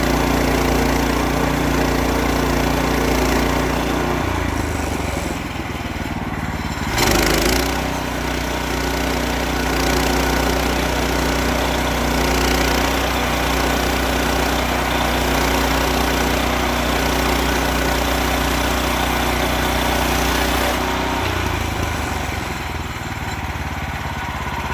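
Small gasoline engine of a Woodland Mills portable bandsaw sawmill running steadily as it saws white oak. Its note changes about four seconds in and again near the end, with a brief louder rasp about seven seconds in.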